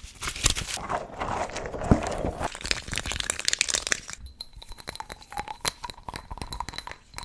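Rapid crinkling and crunching broken by many sharp taps and clicks, from ASMR trigger objects being handled. The sound thins to lighter, sparser ticking after about four seconds.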